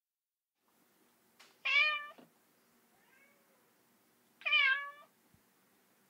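A cat meowing: two loud, short meows about three seconds apart, with a faint, shorter call between them.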